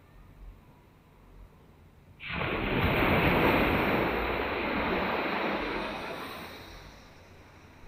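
A wave breaking and rushing up the beach: surf noise comes in suddenly about two seconds in, stays loud for about four seconds, then fades away.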